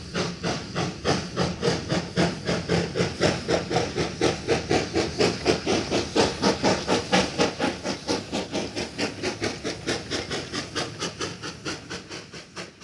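Steam locomotive chuffing at a steady pace, about four hissing exhaust beats a second, fading away over the last few seconds.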